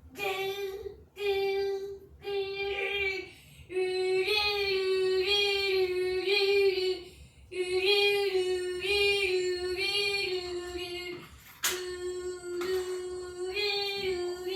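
A child's voice imitating a fire alarm going off after a pull station is pulled. The child holds one steady note in long stretches broken by short pauses, with slight wavers in pitch.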